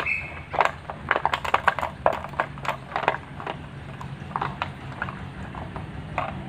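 Irregular quick clicks and scuffs, crowded together in the first half and sparser after, from a pit bull gnawing and tugging at a rope on dry dirt ground.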